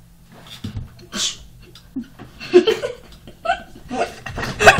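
Boys giggling in short, stifled bursts, breaking into louder laughter near the end.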